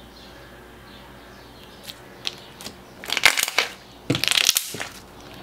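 Thick, glossy, clicky slime squished by hand: a few soft clicks, then two loud crackling bursts about a second apart as it is pressed down.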